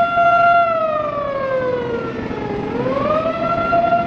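A siren wailing. Its tone holds steady, sinks slowly over about two seconds, then climbs back up to its full pitch near the end.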